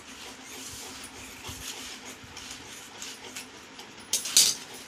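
Scissors cutting through a printed carry bag, with faint snips and crinkling, then a louder rustle of the bag being handled about four seconds in.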